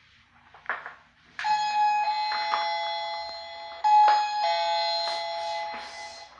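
Toy dollhouse's electronic doorbell playing a two-note ding-dong chime twice, a short high note falling to a longer lower one, with a few light plastic taps around it.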